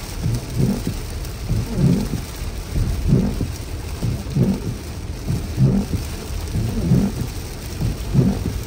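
Heavy rain beating on a car, with the windshield wipers sweeping in a steady rhythm, a low thump about every second and a quarter.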